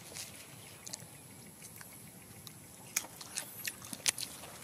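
Quiet outdoor background with a few faint, sharp ticks and clicks, bunched in the second half.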